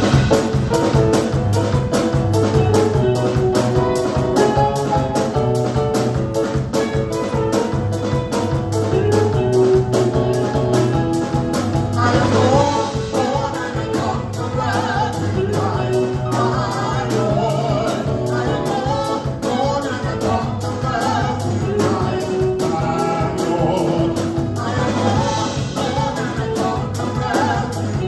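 Live gospel praise band playing an upbeat song with a fast, steady beat. Singers come in about twelve seconds in.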